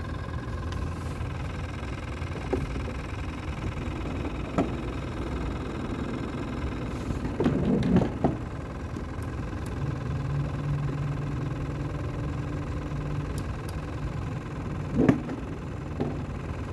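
Electric trolling motor running with a steady whine and hum; a deeper hum joins about ten seconds in. A few sharp knocks against the boat, a cluster about halfway through and the loudest near the end.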